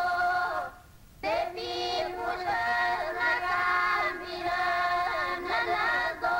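Music: a sung melody over a steady held drone, with a short break about a second in.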